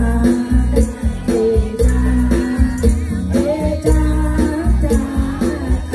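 A woman singing into a microphone over amplified stage music with a steady beat, a tambourine shaking along.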